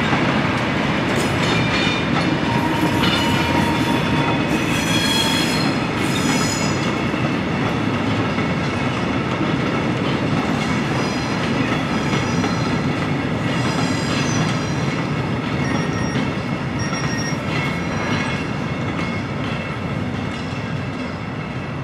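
Freight train of covered bogie wagons rolling past, with steady wheel and rail noise and clatter. High-pitched metallic wheel squeals rise out of it twice, and the sound slowly fades toward the end.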